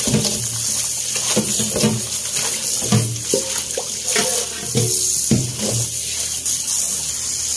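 Tap water running into a stainless steel bowl in a sink while hands rinse and squeeze salted preserved mustard greens, splashing, with a few dull knocks along the way.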